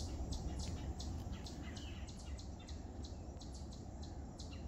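Quiet woodland ambience: scattered faint, short bird chirps over a low, steady rumble.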